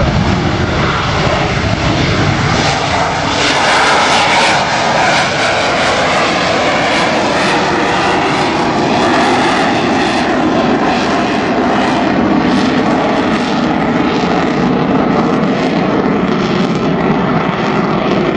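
AV-8B Harrier's Rolls-Royce Pegasus turbofan at takeoff power: a loud, steady jet roar through the takeoff roll and climb-out.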